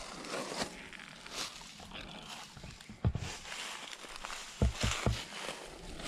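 Footsteps crunching and rustling through dry fallen leaves, with three dull thumps in quick succession a little past the middle.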